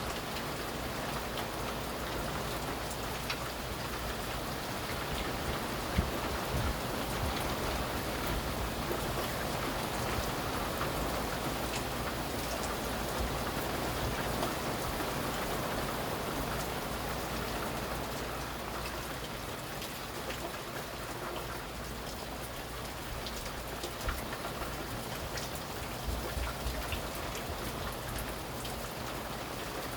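Steady heavy rain falling and pattering on surfaces, with scattered sharp drop ticks and a few dull low knocks.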